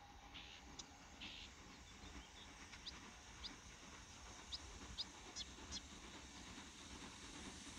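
Near silence broken by short, high bird chirps, about eight of them scattered over several seconds.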